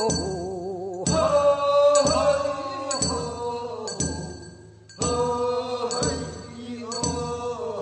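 Korean funeral bier-carriers' song (sangyeo sori) from Gyeongsang province: a voice chanting long, wavering held notes in phrases, with a short break about five seconds in. A bell rings in time about once a second.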